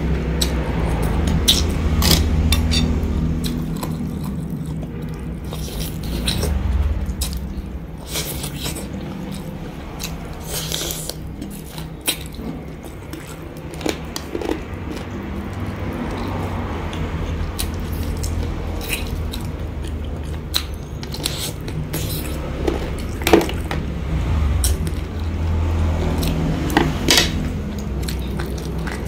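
Close-up eating sounds: wet chewing and mouth clicks, with scattered light clicks and scrapes of chopsticks and a metal spoon against a ceramic bowl, over a steady low background hum.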